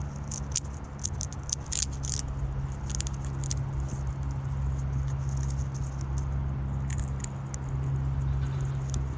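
Prehensile-tailed porcupine crunching a hard snack held in its forepaws: irregular crisp crunches, thickest in the first few seconds and again about seven seconds in. A steady low hum runs underneath.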